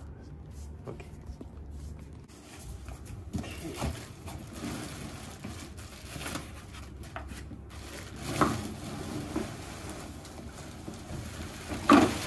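Plastic packaging rustling and a cardboard box scraping as a plastic-wrapped high chair is pulled out of its box, with louder moments about eight seconds in and near the end.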